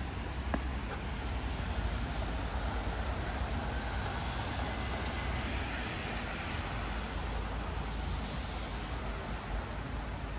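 City street traffic noise: a steady rumble, with a vehicle passing that swells and fades through the middle. A single click sounds about half a second in.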